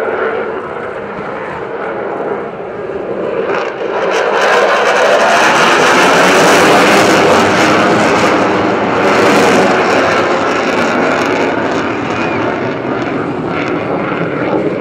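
Jet noise from an F-16 fighter's single engine during a display pass. It swells about four seconds in and is loudest in the middle, with a crackle, then eases off.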